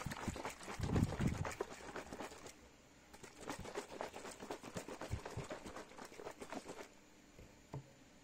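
A plastic G Fuel shaker cup with energy drink powder inside being shaken hard: a fast, uneven rattle of knocks that pauses briefly, runs again and stops, then one knock as the cup is set down on the counter.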